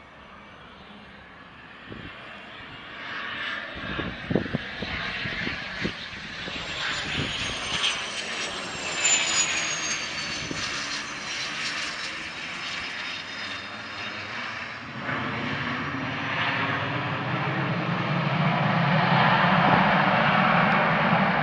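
Raytheon Beechjet 400A business jet's twin Pratt & Whitney Canada JT15D turbofans on landing: a high jet whine that falls in pitch as the jet passes close by, then engine noise growing louder toward the end as it rolls out down the runway.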